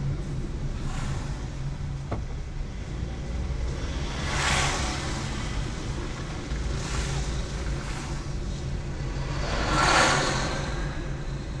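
Road traffic from a car on the move: a steady low engine and road drone, with three rushes of tyre noise as vehicles pass, about four and a half, seven and ten seconds in. The last is the loudest.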